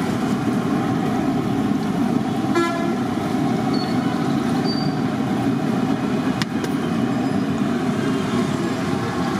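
Steady sizzle of batter fritters deep-frying in a large kadai of hot oil, under a bed of street traffic noise. A short horn toot sounds about two and a half seconds in.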